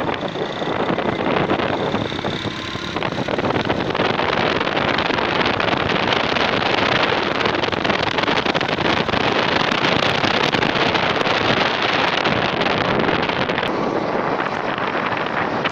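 Steady rush of wind buffeting the microphone on a moving motorcycle, mixed with the motorcycle's engine and road noise.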